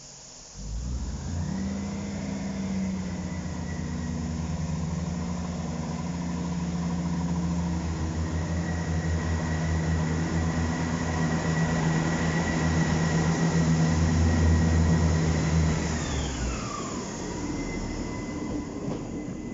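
Class 158 diesel multiple unit pulling away from the platform: its underfloor diesel engines open up suddenly about half a second in, with a high whine rising above the throb. The sound grows louder as the unit passes. Near the end, the throb stops and the whine drops in pitch.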